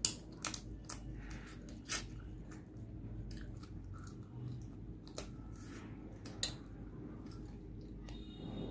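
Close-miked chewing of a mouthful of rice and fried fish eaten by hand, with several sharp crunches and wet mouth clicks, most of them in the first two seconds.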